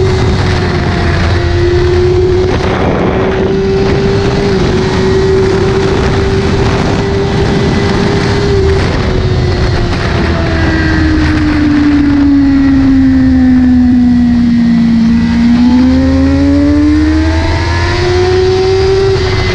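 Sportbike engine heard from the rider's onboard camera at extreme speed, around 240 km/h in sixth gear, under a heavy rush of wind. The engine note holds steady at high revs, sinks over several seconds as the bike slows, then climbs again near the end.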